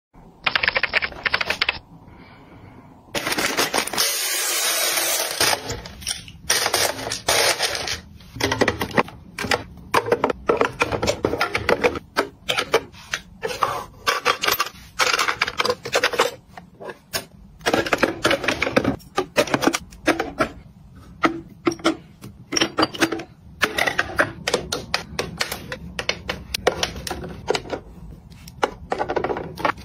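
Rapid hard clicks and clacks of cosmetic cases and bottles being set down and shifted in clear acrylic organizer drawers, with a hiss of about two seconds about three seconds in.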